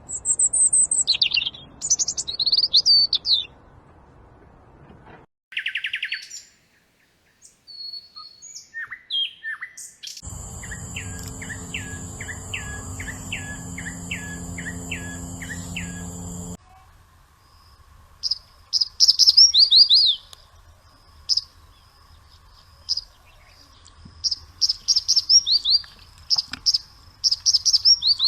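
Songbirds singing in several short recordings spliced together, with rapid phrases of high whistled notes that sweep downward. The background changes abruptly at each cut. In one middle stretch a steady high tone and a low hum run under short repeated calls, about two a second.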